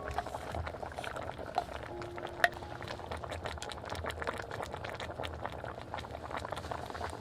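A pot of stew bubbling at a steady boil, a dense crackle of small pops, with a sharper click about two and a half seconds in.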